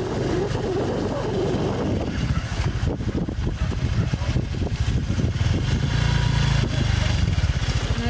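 Small motorbike engine running while riding, a low rumble with a rapid flutter; the engine note grows steadier and stronger near the end.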